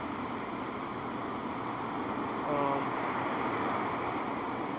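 Steady background hiss, with a brief voiced hum from a man about two and a half seconds in.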